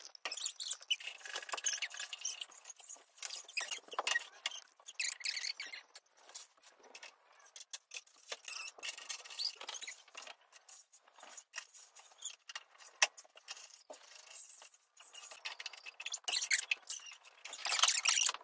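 Light knocks, clicks and scrapes of wooden panels and cardboard posts being handled and fitted together while a cat tree is assembled, with a louder scraping rustle near the end.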